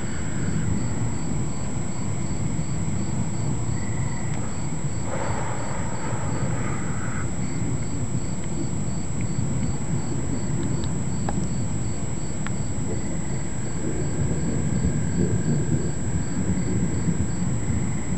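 An insect chirping steadily at about two chirps a second, with a few short pauses, over a steady low rumble.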